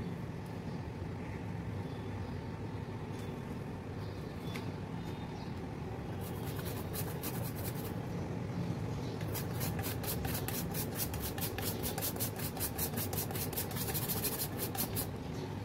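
Chocolate being grated on a small metal hand grater: quick, rhythmic scraping strokes, about five a second, starting about six seconds in, over a steady low rumble.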